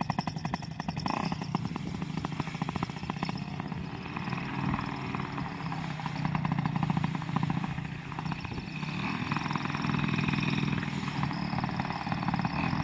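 Paramotor's AC Nitro 200 two-stroke engine running under power, its level dipping and swelling a few times.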